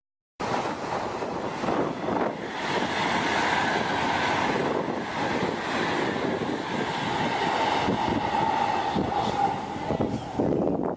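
High-speed train running at speed: a steady rushing noise with a faint held whine, mixed with wind on the microphone. It starts just after a brief silent gap.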